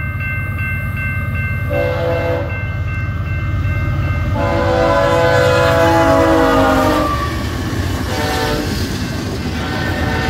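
Diesel locomotive air horn blowing the grade-crossing signal over the rumble of a passing freight train: two blasts, then a short one, then a long one starting near the end. The longest blast sags in pitch as the locomotive goes by. A crossing bell rings steadily at first.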